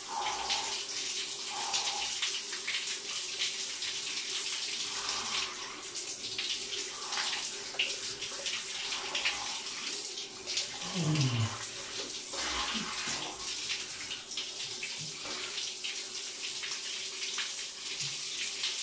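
Cold shower spray running steadily, water splashing onto a person's body and the shower tray in a small tiled cabin. About eleven seconds in, a short sound falls in pitch over it.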